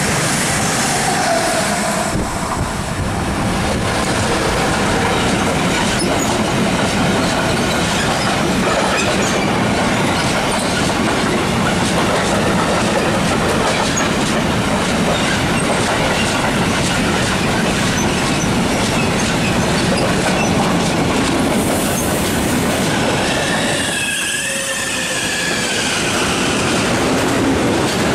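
Freight train of covered wagons and tank wagons rolling past close by: a loud, steady noise of steel wheels on rail with clickety-clack and a few brief, high wheel squeals.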